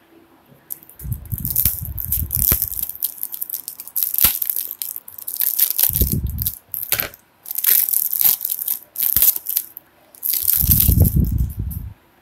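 Clear cellophane shrink-wrap being cut and torn off a perfume box, crackling and crinkling in repeated bursts, with a dull low rumble from handling under some of them.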